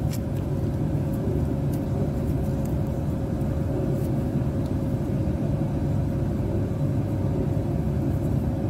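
Steady low machinery rumble with a constant hum running under it, and a few faint clicks in the first few seconds.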